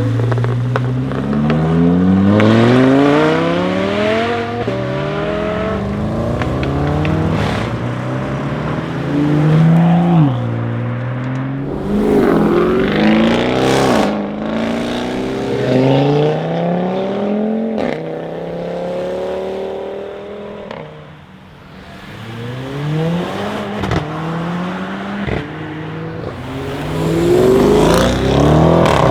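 Tuned Audi RS6 C7's twin-turbo V8 through an Akrapovic exhaust under repeated hard acceleration. The engine note climbs and drops back again and again as it pulls through the gears, with a few sharp exhaust cracks. It goes quieter for a moment about two-thirds of the way through.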